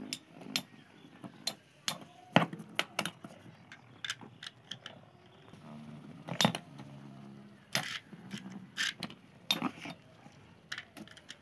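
Metal Beyblade spinning tops clashing on a plastic-covered arena: irregular sharp clacks, several of them loud.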